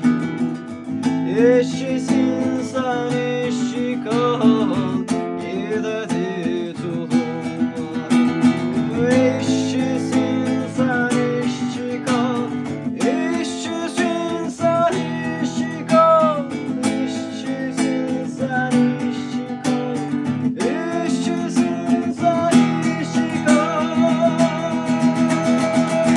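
Acoustic guitar strumming under a melody line that slides between notes: the instrumental close of a song.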